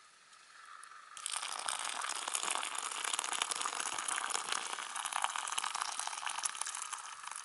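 Water poured from a Jetboil cooking cup into a foil-lined dehydrated meal pouch: a steady splashing pour that starts about a second in.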